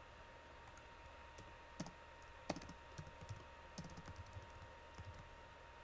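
Faint, irregular clicks of computer keys being pressed, a dozen or so scattered from about a second and a half in, over quiet room tone with a faint steady tone.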